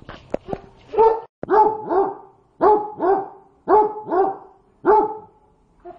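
A dog barks about eight times in quick pairs at its food, which is too hot to eat. A few sharp clicks come just before the barking starts.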